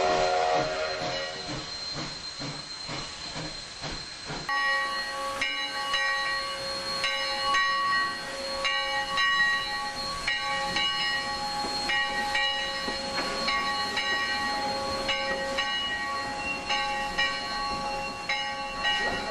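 Dubbed steam locomotive sound. At first the exhaust chuffs in an even beat, with a short whistle at the start. After a cut about four seconds in, steam hisses under a ringing of several tones that is struck again and again, about once a second.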